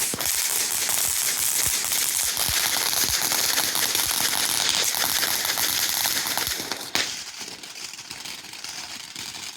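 Ground firework fountain spraying sparks: a steady hiss thick with crackles, which dies down about seven seconds in with one sharp pop.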